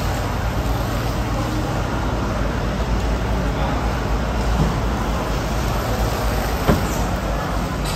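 Water from a hose spraying and splashing onto a wet floor, a steady hiss, over a steady low hum. A single sharp knock sounds near the end.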